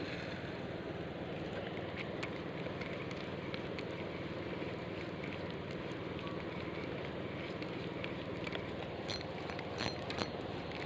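Steady rushing outdoor background noise, with a few faint clicks about nine to ten seconds in.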